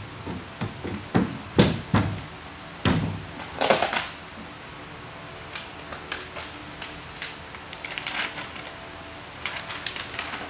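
Handling noises from working a foam deck pad with a hand roller: a run of knocks and thumps, loudest and closest together in the first four seconds, with a few scraping rustles and lighter clicks after.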